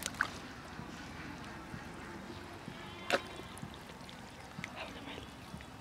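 Hands digging and squelching in wet mud, with faint wet sloshing and a sharper slap about three seconds in.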